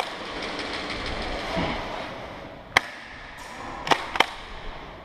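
Three sharp cracks of airsoft fire, one a little under three seconds in and two close together about a second later, over a steady rustle of movement.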